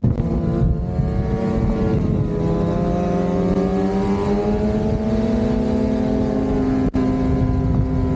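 Two-stroke engine of a Lynx Shredder RE 850 Turbo snowmobile, fitted with a Jaws trail muffler, running under way at steady speed. Its pitch dips slightly about three seconds in and then climbs again, and the sound drops out for an instant near the end.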